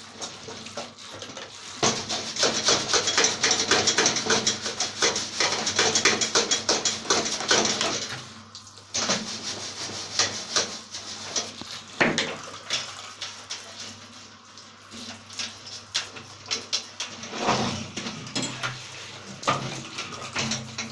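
Water from a hand shower spraying onto plastic vacuum cleaner parts as they are rinsed and scrubbed, the spray running strongly for several seconds, then broken rubbing and scraping with a few sharp plastic knocks.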